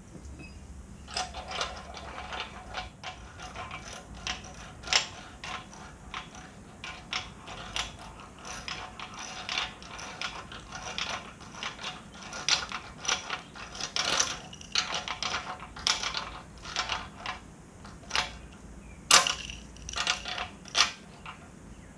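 Hand ratchet wrench clicking in short, irregular runs as bolts are tightened down.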